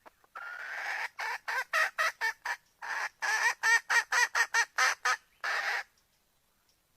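Red junglefowl hen calling to a cock: a drawn-out note, then two runs of short, quick notes at about four a second, and a last drawn-out note.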